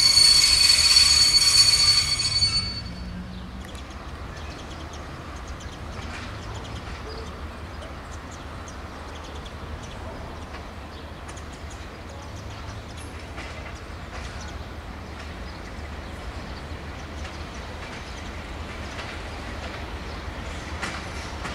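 Train wheels squealing against the rails: a loud, steady, high-pitched squeal that cuts off about two and a half seconds in. After it, much quieter, a slow-moving train of passenger coaches rolls over yard pointwork with a low rumble and faint clicks.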